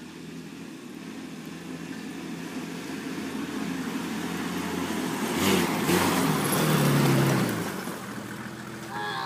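Ute engine running as it drives across the grass, growing louder as it approaches, loudest about six or seven seconds in, then fading as it passes.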